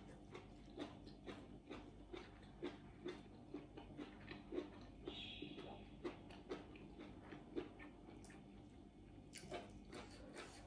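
A person chewing a mouthful of food with soft, wet smacking clicks about two a second. A brief faint high tone sounds about halfway through.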